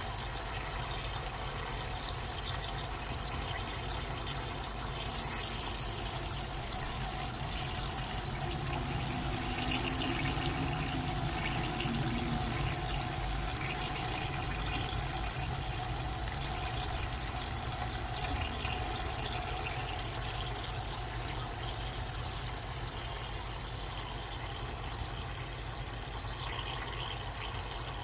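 Dry ice sublimating with a steady, water-like bubbling hiss and scattered small clicks.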